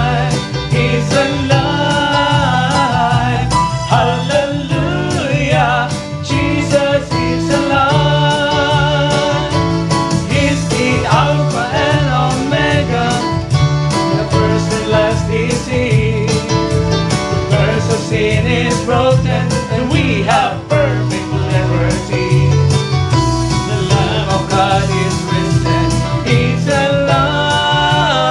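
Gospel music: a song with singing over a band with a steady beat and bass.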